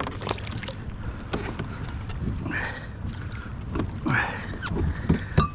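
Knocks, clicks and rattles of gear being handled aboard a plastic fishing kayak, with two brief noisy swishes a few seconds in, over a low steady rumble.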